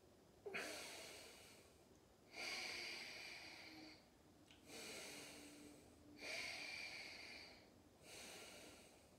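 A person breathing slowly and audibly during a held yoga pose: five soft breaths, inhales and exhales in turn, each about a second and a half long.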